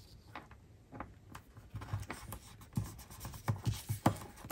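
Hands handling paper planner pages and stickers on a wooden table: a run of light paper rubbing, scraping and soft taps, busier in the second half.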